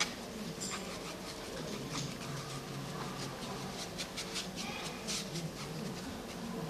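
A brush working paint onto a box: many short, faint scratchy rubbing strokes and small taps, over a steady low hum.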